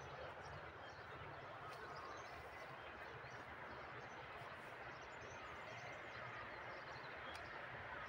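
Faint, steady outdoor background noise, with a few brief high chirps over it.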